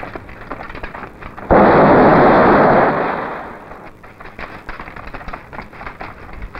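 An explosion about a second and a half in: a sudden blast that stays loud for over a second, then dies away over the next second. Scattered sharp crackles before and after it.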